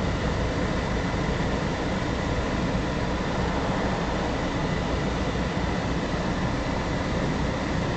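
Steady engine and road noise heard inside a moving car's cabin.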